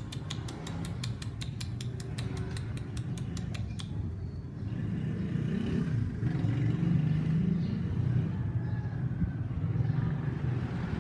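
A dog chewing food with rapid, regular clicks, about six a second, which stop about four seconds in. A low, steady rumble follows, like a motor vehicle's engine.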